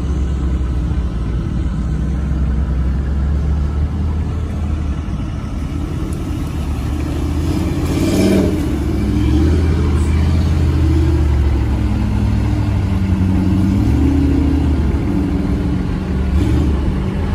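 Jeep Grand Cherokee's engine revving under load as it drives through deep mud, getting louder about halfway through.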